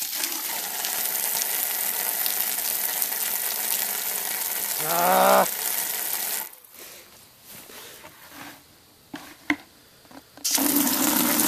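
Water spraying from a garden hose nozzle into a plastic bucket: a steady hiss that stops about six and a half seconds in and starts again near the end, with a few faint clicks in the gap. A short pitched sound comes about five seconds in.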